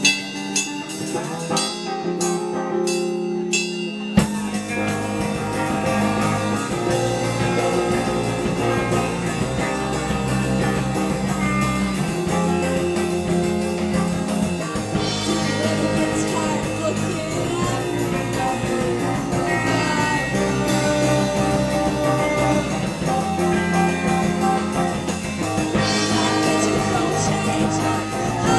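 Live rock band playing: a guitar part opens, and bass and drums join with the full band about four seconds in.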